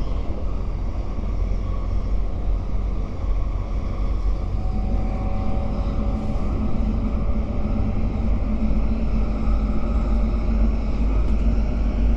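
Cabin noise of an MTR Airport Express CAF electric train running at speed: a steady low rumble from the wheels and track. From about four seconds in, a faint motor whine joins and rises slowly in pitch as the train gathers speed.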